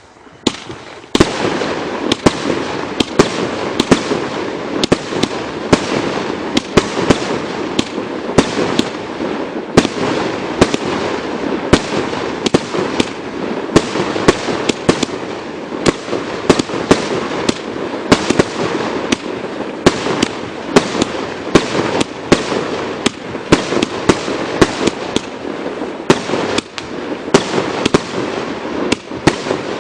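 80-shot firework cake firing in rapid succession: sharp reports about twice a second over a continuous crackling hiss.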